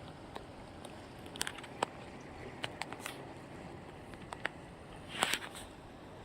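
Scattered light clicks and taps over a steady outdoor hiss, with a short rush of noise, the loudest moment, about five seconds in.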